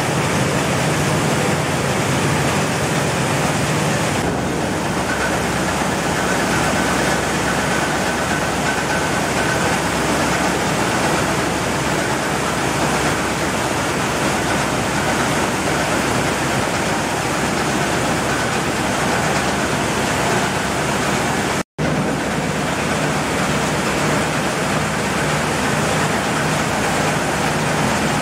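Rice mill machinery running: a loud, steady, dense noise of milling machines and grain flowing through the plant. The sound changes character about four seconds in and drops out for an instant about twenty seconds in.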